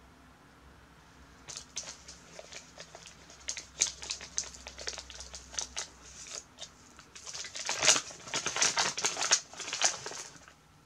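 A taped paper bag being opened by hand: crinkling and rustling with small crackles, starting about a second and a half in and busiest near the end.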